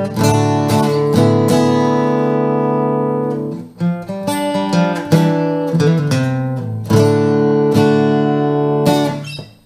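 Emerald X20 carbon-fibre acoustic guitar played solo: chords are struck and left to ring, with a busier stretch of picked notes in the middle. The last chord dies away near the end.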